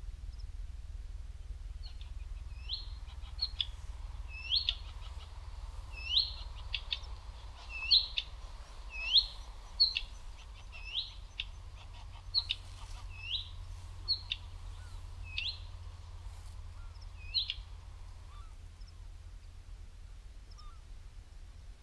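A small bird calling over and over: about a dozen short, hooked, whistled notes, roughly one a second, mixed with faint ticks. The calls stop near the end. A steady low rumble runs underneath.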